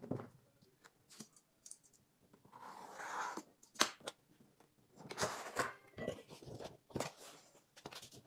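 Cardboard shipping box being opened by hand: rustling, scraping and tearing of cardboard and packing tape as the flaps are pulled open and a foam insert is lifted out, with a few sharp clicks.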